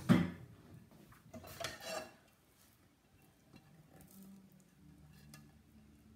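Stainless steel saucepan and metal utensils clattering sharply at the start and again about a second and a half in, as the pan of strawberry jam is handled on the gas hob. After that, quieter scraping of a silicone spatula against the pan.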